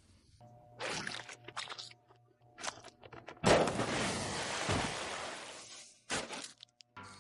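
A string of sound effects: short clattering knocks, then a loud sudden crash about three and a half seconds in that dies away over a couple of seconds, with a few more short hits near the end.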